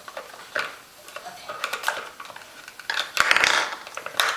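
Plastic cups of a dog's treat puzzle toy clicking and clattering against the plastic board as a dog noses and lifts them, with a louder clatter about three seconds in.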